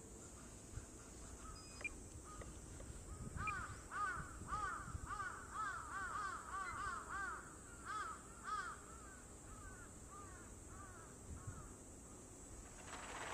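A bird calling outdoors: a run of short, arching call notes, about two a second, that starts a few seconds in and fades away near the end. A steady high-pitched whine sits underneath throughout.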